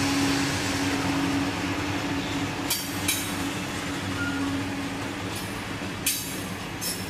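Freight train passing close by: a diesel locomotive's steady hum over the rolling noise, fading out about five seconds in as covered hopper cars roll past. A few short, sharp metallic wheel sounds come from the rolling cars.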